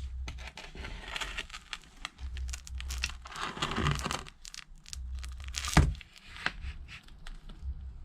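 Shattered iPad mini 2 front glass peeling away from its adhesive as it is lifted, with crackling, tearing noise and small clicks, and one sharp click about three-quarters of the way through.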